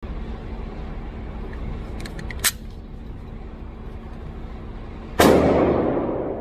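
A few light clicks about two seconds in, then a single shot from a Sig Sauer P320 M17 AXG 9mm pistol about five seconds in, ringing out with a long echoing tail.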